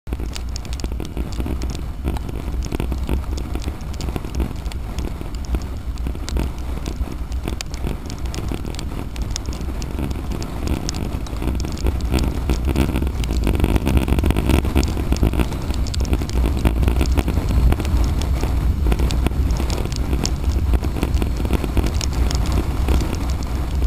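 Wind rumbling on the microphone of a camera mounted on a moving motorcycle in the rain, with raindrops crackling against the camera over the road noise. It gets a little louder about halfway through.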